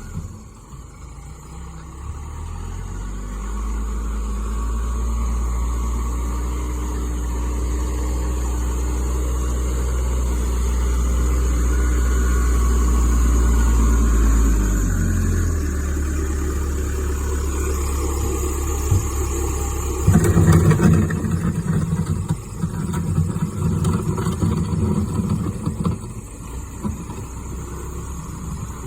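1998 Case 580L backhoe's four-cylinder diesel engine working while plowing snow. It revs up over several seconds, eases off about halfway through, then runs louder and rougher for several seconds about two-thirds of the way in.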